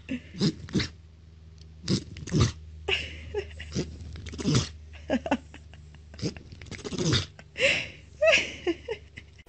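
A pet sneezing again and again: over a dozen short, sharp sneezes and snorts in quick succession, some coming in pairs. A steady low hum runs underneath.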